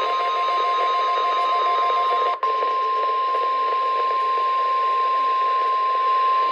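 NOAA Weather Radio 1050 Hz warning alarm tone, a loud steady single-pitch tone over radio static, sent as the weekly test of the alert tone. It drops out very briefly about two and a half seconds in.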